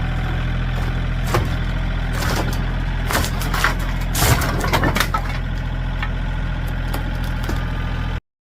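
A steady engine-like drone, like a motor idling, with a cluster of sharp knocks and clanks in the middle. It stops abruptly near the end.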